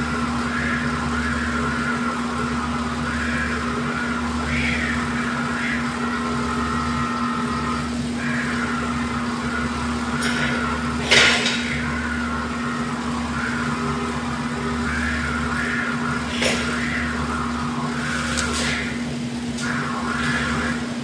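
Electric stand-up reach truck working at a pallet rack: a steady hum and wavering whine of its motors and hydraulics, with a sharp clack about eleven seconds in and lighter knocks later.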